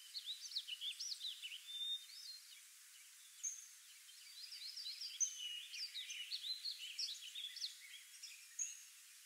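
A flock of small birds chirping, many short high chirps overlapping, thinning out briefly a few seconds in.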